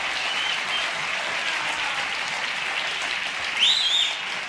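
Studio audience applauding steadily, with a loud high whistle from the crowd rising and falling about three and a half seconds in.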